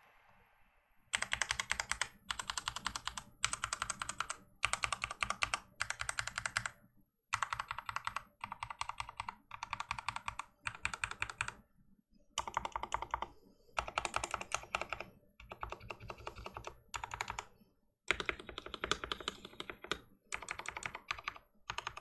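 Fast typing on a Mountain Everest Max mechanical keyboard with lubed Cherry MX Speed Silver linear switches and doubleshot PBT pudding keycaps. The keystrokes come in rapid runs broken by short pauses, starting about a second in.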